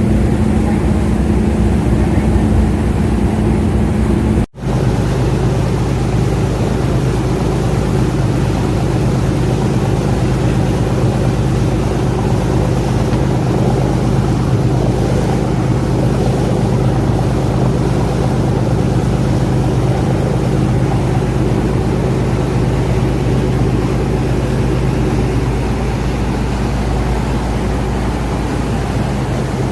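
Passenger ferry's engines running with a steady drone under rushing water and wind noise. About four and a half seconds in there is a brief dropout, and after it the drone settles to a lower hum.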